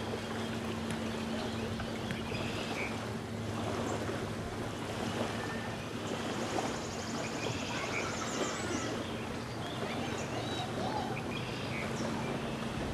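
Small lake waves lapping on a sandy shore with a steady wash of wind and water, under a constant low hum. Short bird chirps come now and then, with a fast high trill about halfway through.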